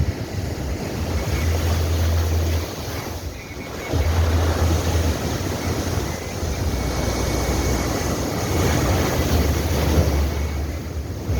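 Ocean surf breaking and washing continuously, with a low wind rumble on the microphone that comes and goes in gusts.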